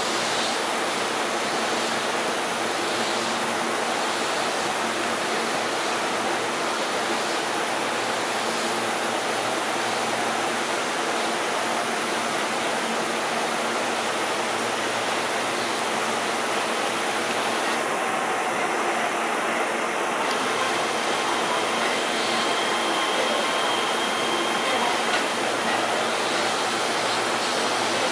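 Steady rushing noise of a Keihan 13000 series electric train rolling slowly over pointwork, getting a little louder near the end, with faint thin whines.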